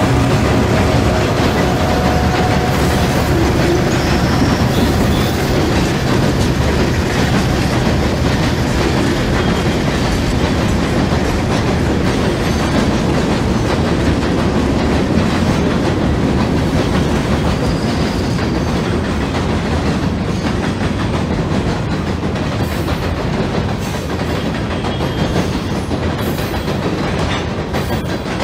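HO scale model freight train's boxcars rolling across a model trestle bridge: a steady clatter and rumble of small wheels on rail, easing a little toward the end.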